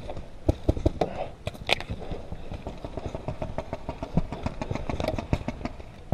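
Paintball markers firing: a string of sharp pops at an irregular pace, some close and loud, others fainter, over a steady low hum.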